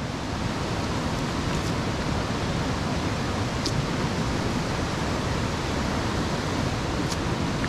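Steady rushing of a jungle stream, an even hiss of running water that never lets up.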